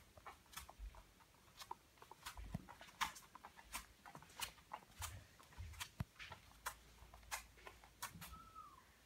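Faint, irregular ticking of a Birman kitten's paws and claws on a hard floor as it walks, sharp clicks about one or two a second. A brief faint falling squeak near the end.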